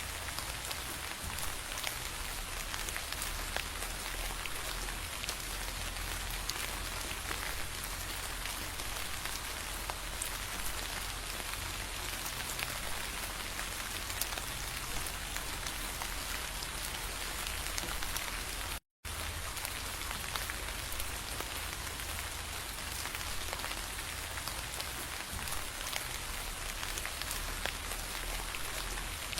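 Steady rain falling, an even hiss with faint individual drop ticks. All sound cuts out for a moment about two-thirds of the way through.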